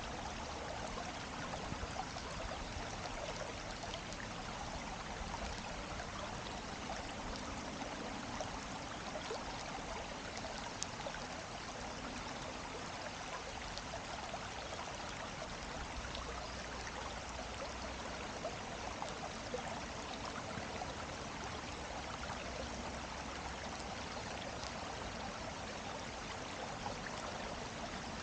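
Steady rushing and babbling of a running stream, unchanging throughout.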